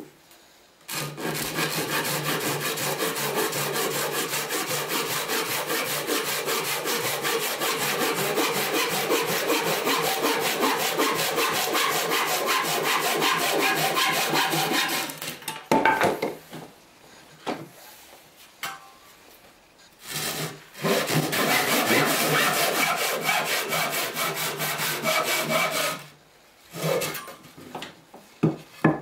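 A hand saw cutting through a wooden board in quick, even back-and-forth strokes. It goes in two long runs with a pause of a few seconds between them, sawing off a section of the board. Near the end come a few separate knocks.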